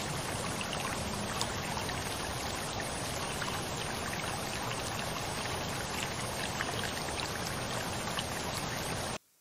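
Steady rushing sound of running water with faint scattered ticks; it cuts off abruptly near the end.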